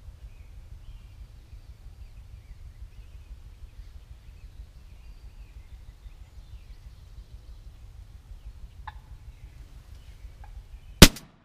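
A single shotgun blast near the end, sharp and very loud, from a turkey hunter's camouflaged shotgun fired from a ground blind. Before it only a low wind rumble and faint birdsong.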